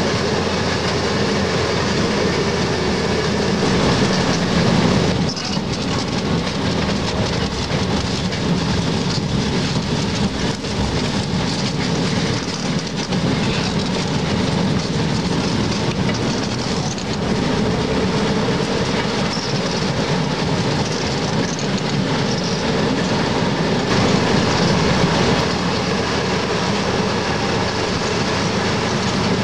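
Sacramento Southern Railroad excursion train rolling along the track at steady speed, heard from aboard: a continuous rumble and rattle of wheels on rails and cars, a little louder about four seconds in and again near the end.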